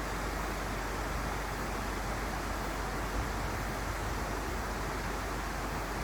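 Steady rush of a mountain stream's flowing water, an even noise with no breaks.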